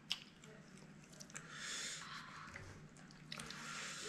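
A man's breath at the microphone: two breathy puffs of air, about a second each, the first starting a little over a second in and the second near the end, with a small click at the start.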